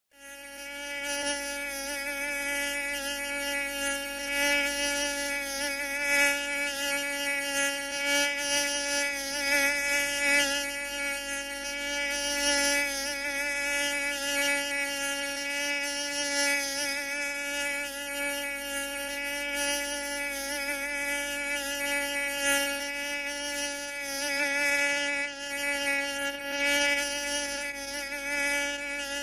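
Mosquito in flight, its wingbeats making a continuous whine with many overtones. The pitch wavers slightly and the loudness swells and fades as it moves.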